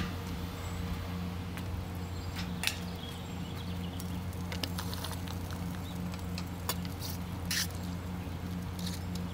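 Turkey baster drawing up pan juices from a drip pan under a pork shoulder: a few small squishes and clicks over a steady low hum.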